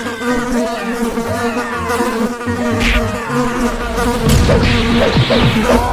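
A steady buzzing drone held at one pitch, with short wavering notes over it and a rougher, noisier stretch in the second half.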